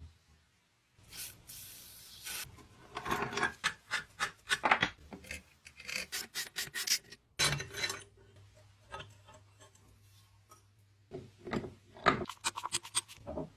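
Abrasive hand work on a rusty car horn's metal: bursts of quick back-and-forth scraping strokes, several a second, with short pauses between. A steady hiss lasts about a second near the start.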